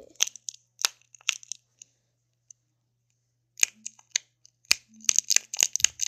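Small clear plastic cap fidget with a press-in centre being pushed in and out, giving sharp plastic clicks and pops. There are a few at first, a pause of about two seconds, then a quicker run of clicks near the end.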